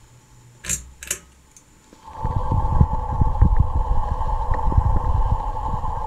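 Two sharp clicks about a second in. Then, from about two seconds in, a loud, steady rush with irregular low buffeting as the spinning ceiling fan's blades push air across the microphone.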